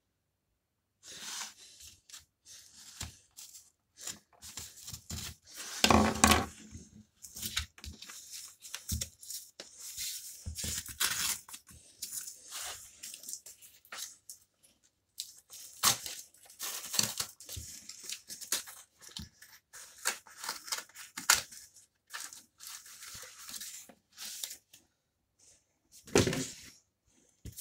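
Cardboard mailer envelope being torn open by hand: repeated irregular ripping and rustling of card and paper, the loudest rip about six seconds in.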